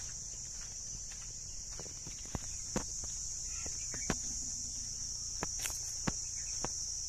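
A steady, high-pitched insect drone, with scattered sharp clicks and a low rumble of wind on the microphone.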